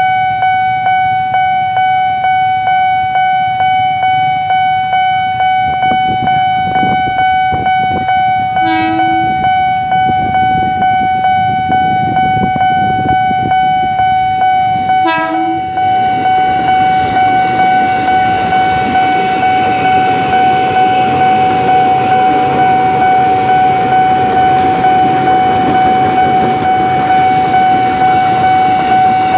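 Level-crossing warning bell ringing steadily in quick repeats as a KRL commuter electric train approaches. The train gives two short horn blasts, about nine seconds in and again about six seconds later. From about sixteen seconds on, the rumble and clatter of the train running over the crossing builds under the bell.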